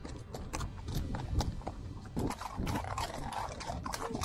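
Hooves of a pony and a horse walking on a wet, stony gravel track: irregular clopping and crunching on the stones, with splashes through shallow water.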